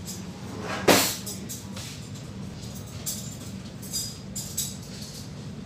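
Pots and dishes clinking a few times, the loudest clink about a second in, over a steady low hum.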